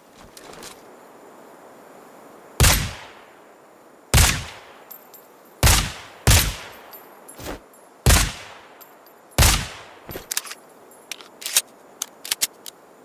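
Desert Eagle pistol fitted with a suppressor firing single shots: six loud reports a second or so apart, each with a short fading tail, plus a few weaker ones, then a quick run of small sharp clicks near the end.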